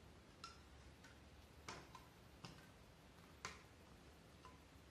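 Faint, irregular clicks of thread being wound around the nails of a string art board, with four sharper ticks among them.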